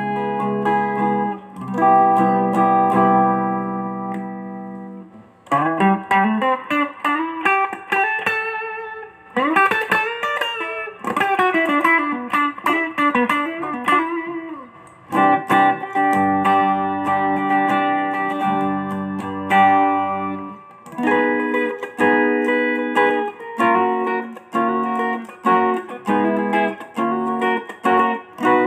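Mexican-made Fender electric guitar being played: ringing chords, then a single-note lead with string bends and vibrato from about six seconds in, then held chords again, turning into short rhythmic chord stabs near the end.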